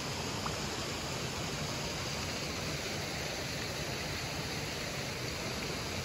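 Steady rushing of a river, an even wash of water noise.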